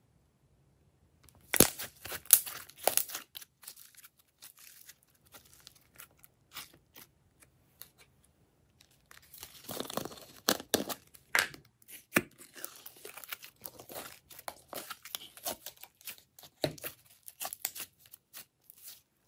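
Glossy slime being squeezed, stretched and pulled apart by hand, giving sticky crackling and popping clicks. There is a burst about two seconds in, a denser run around the middle, and scattered clicks after that.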